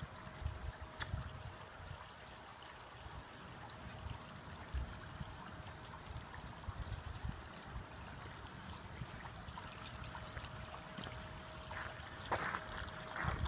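Floodwater running, a steady rush of flowing water with an irregular low rumble beneath it. A louder splash-like burst comes near the end.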